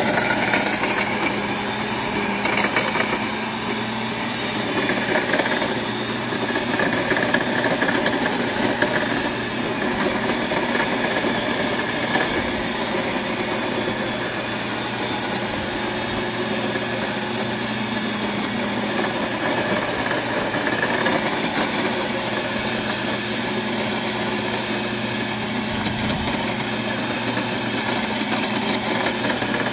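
Corded electric tiller-cultivator running steadily, its spinning tines churning and scraping through compacted snow.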